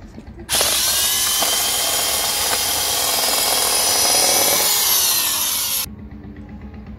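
Corded electric drill cutting a hole through a plastic air filter housing. It starts suddenly about half a second in and runs for about five seconds. Its pitch drops in the last second, then it stops abruptly.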